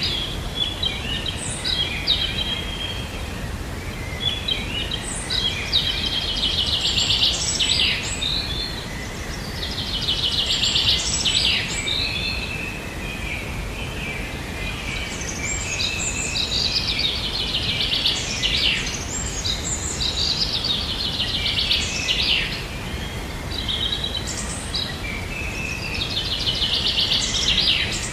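Forest birdsong: a bird repeating a fast trilled phrase every few seconds, with other short chirps between, over a steady background hiss.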